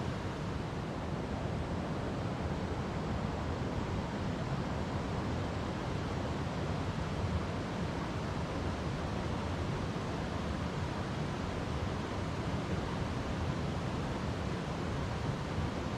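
River water flowing over rocks: a steady, low rushing with no breaks.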